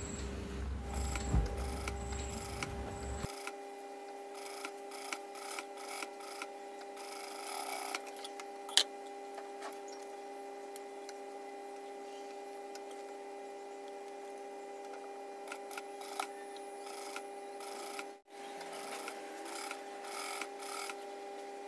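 Industrial lockstitch sewing machine running in short stitching runs with a steady motor hum, while fabric is shifted by hand, giving scattered light clicks and rubbing. The machine is stitching a zip close to the fabric edge.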